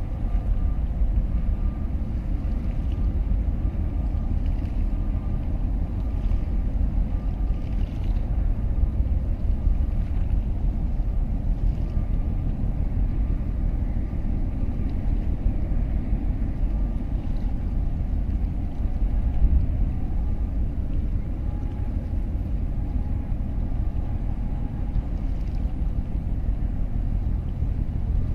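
Steady low rumble of a motorboat underway, its engine running with water noise, and a faint whine above the rumble.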